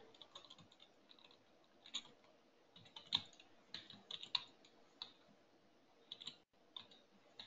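Faint, irregular keystrokes on a computer keyboard, with a few louder taps about three and four seconds in.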